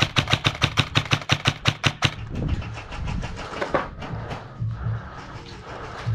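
Airsoft rifle firing a full-auto burst of about ten shots a second, stopping about two seconds in, followed by a few scattered single shots over a low steady hum.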